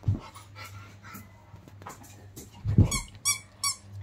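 Labrador giving a quick run of five or six short, high-pitched whining squeals in excitement near the end, with dull thumps from the dog bumping against the bed, the loudest just before the squeals.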